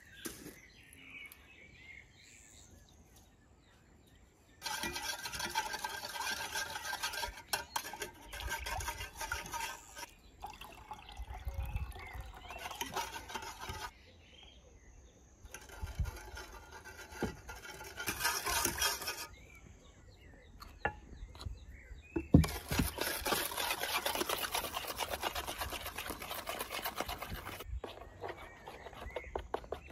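Metal spoon stirring and scraping in a metal pot, in several bursts of a few seconds each separated by quieter stretches.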